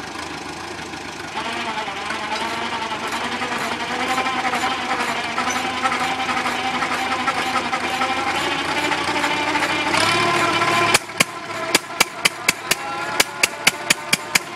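Farmall tractor engine running and rising in pitch as it turns a 1.5 hp Sattley hit-and-miss engine over by V-belt. About eleven seconds in the steady drone cuts off and a quick string of sharp bangs follows, about three or four a second: the Sattley firing in a short burst. The engine runs only in bursts and will not keep running, which the owner puts down to a bad condenser.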